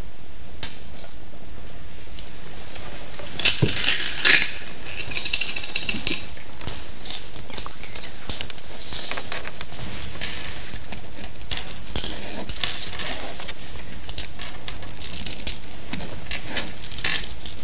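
Go stones clicking on a wooden board and clattering against one another as players handle them. The loudest burst of clacks comes about three and a half to four and a half seconds in, followed by scattered lighter clicks.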